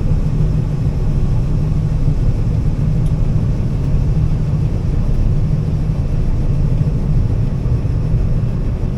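Combine harvester running steadily while cutting soybeans: a constant low drone of engine and threshing machinery.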